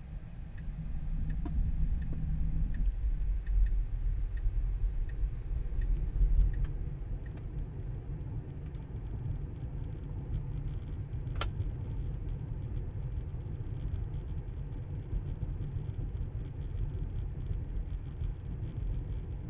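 Road and tyre rumble inside a moving Tesla, with no engine note, swelling for the first several seconds as the car picks up speed. A turn-signal indicator ticks about twice a second over the first several seconds, and there is one sharp click near the middle.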